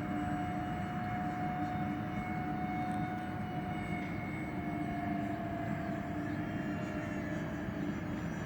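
A large RC model Airbus A330 flying past overhead, its electric fan motors giving a steady whine that sags slightly in pitch about halfway through.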